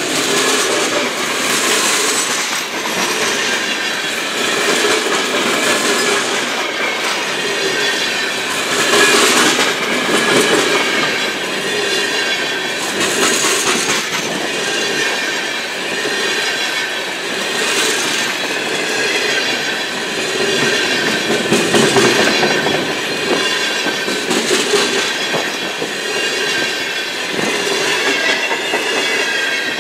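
Freight cars of a long train rolling past close by: steel wheels clacking over the rail joints, with a steady high wheel squeal running underneath. The sound swells every few seconds as each car's wheel sets go by.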